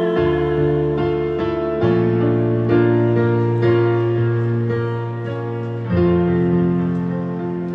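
Digital stage piano playing a slow instrumental passage of sustained chords, changing chord about two seconds in and again about six seconds in.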